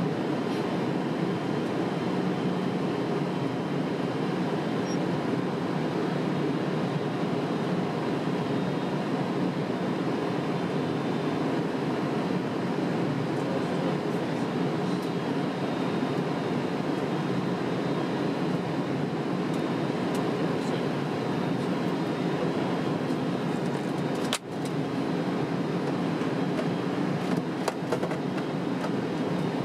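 Steady cabin noise on a Boeing 767 flight deck during the descent: airflow and engine noise heard as an even, unbroken rumble. A single sharp click with a momentary drop in level comes about 24 seconds in.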